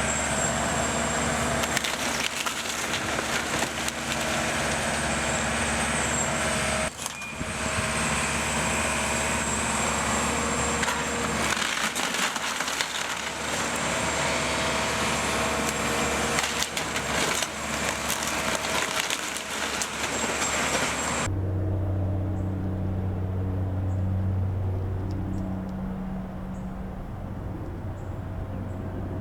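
Heavy demolition machinery tearing down a wood-frame house: wood cracking and splintering amid a constant crashing din over the machine's engine. About 21 seconds in, the sound cuts abruptly to a quieter, steady engine note.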